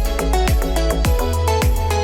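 Background music: an electronic track with a deep bass line and a steady kick-drum beat.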